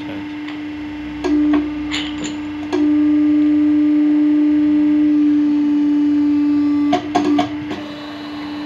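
Hydraulic hose crimping machine's pump running with a steady hum. A few clicks come before the hum grows much louder for about four seconds, as if working under load during a crimp. It drops back with a couple of clunks near the end.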